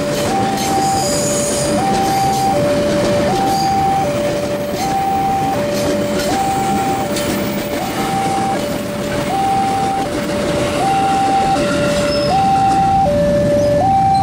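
Level-crossing warning alarm sounding a continuous two-tone hi-lo signal, switching pitch about every three quarters of a second, over the rumble and wheel clatter of a KRL commuter electric train passing close by.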